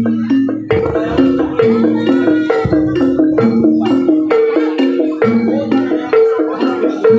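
Javanese gamelan music: metallophones play a quick, repeating melody of struck notes, with lower notes underneath.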